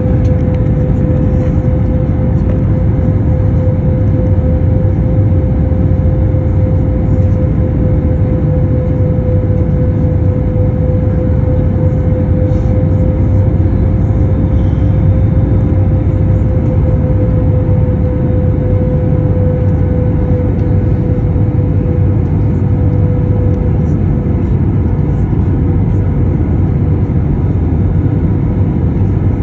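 Airbus A321 cabin noise from a window seat over the wing during descent on approach: a loud, steady rush of engine and airflow noise with a steady tone held through it that sinks slightly in pitch near the end.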